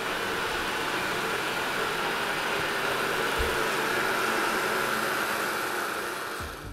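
Roborock S7 robot vacuum running, a steady hiss of its suction fan with no change in pitch.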